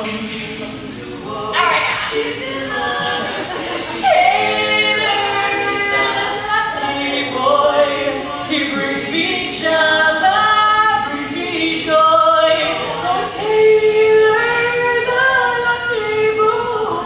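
Women's barbershop quartet singing a cappella in close four-part harmony, holding and shifting chords.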